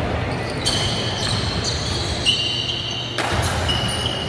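Indoor gym game sound at a youth basketball game: a ball bouncing on the court over the murmur of spectators, with a few short high-pitched squeaks.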